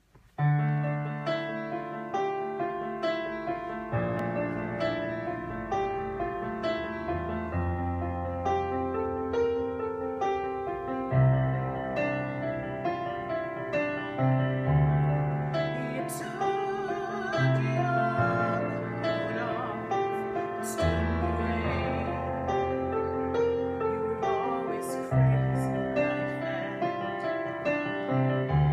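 Digital stage keyboard with a piano sound playing a slow ballad accompaniment, sustained chords changing every three to four seconds. A woman's voice comes in softly about halfway through.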